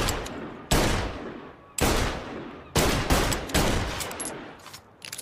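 Magnum revolver firing five shots, about one a second, each ringing out in a long echoing tail. A few light mechanical clicks follow near the end.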